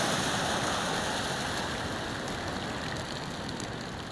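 Seawater from a wave that has overtopped a stone harbour wall, cascading off the wall and washing across the cobbled pier in a steady rush that fades as the water drains away.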